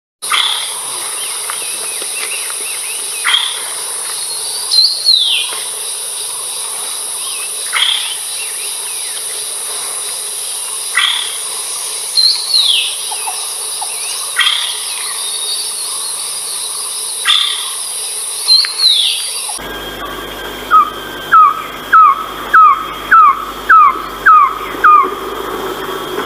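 Philippine trogon calling: scattered short calls and a few falling notes over a steady high insect drone. About twenty seconds in, a louder stretch begins with a run of about eight evenly spaced falling notes.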